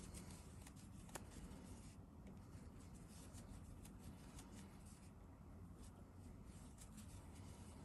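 Near silence with faint rustling and light scattered clicks of a crochet hook working yarn, with one sharper click about a second in.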